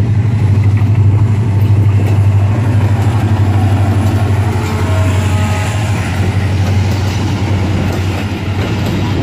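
Diesel engine of a GE HGMU-30 diesel-electric locomotive working under throttle as it pulls a passenger train away and passes close by, a loud, steady deep drone. The drone eases a little near the end as the coaches follow the locomotive past.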